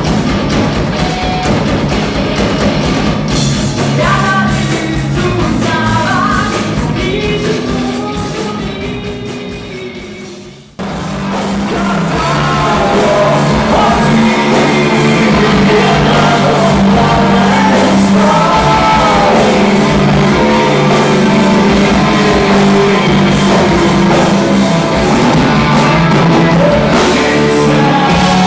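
Live rock band music with singing, loud through a club PA. About ten seconds in the song fades away and cuts abruptly to another rock song, with a male singer over electric guitar and drums.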